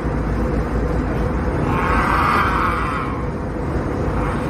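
Steady airliner cabin noise, with a man's long wordless yell for about a second, around two seconds in.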